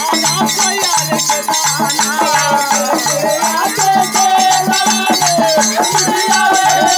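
Live dhobi geet folk music: a hand drum keeps a steady beat under a shaken, jingling rattle or cymbal sound, with a melody line sliding in pitch over the top.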